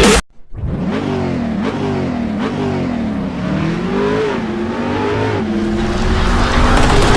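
Sports car engine revving, its pitch climbing and dropping again and again, then holding steadier near the end.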